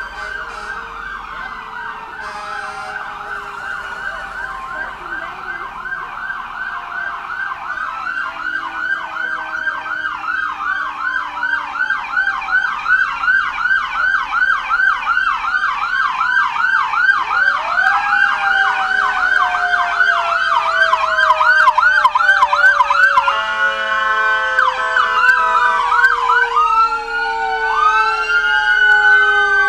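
Emergency-vehicle sirens sounding together: a rapid yelp with slower wails over it, growing steadily louder. Near the end the yelp gives way to several wails rising and falling over one another.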